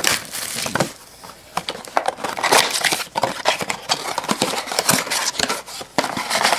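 Cardboard trading-card blaster box being handled and opened by hand: a busy run of scrapes, clicks and crinkles as the box flaps and the card packs inside are worked loose.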